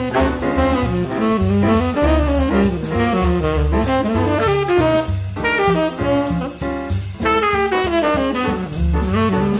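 Jazz background music: a saxophone-led melody with brass, over a bass line and a drum kit keeping a steady beat.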